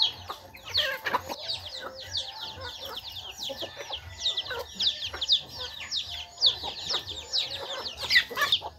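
Chicks peeping continuously: a rapid run of short, high, falling peeps, several a second, with a hen clucking low beneath them.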